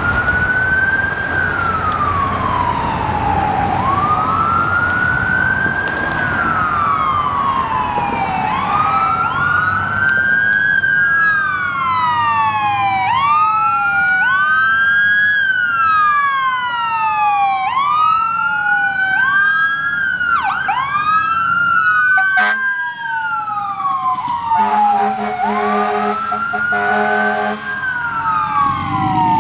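Fire engine siren wailing, rising and falling about every five seconds, with a second wail running slightly out of step from about a third of the way in. Near the end, the truck's air horn sounds for about three seconds over the siren.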